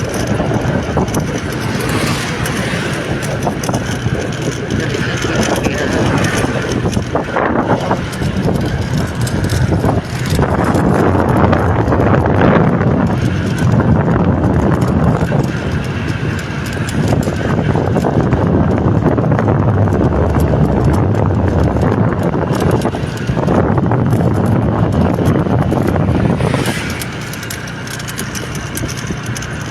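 Steady vehicle noise with wind on the microphone, louder through the middle and easing off near the end.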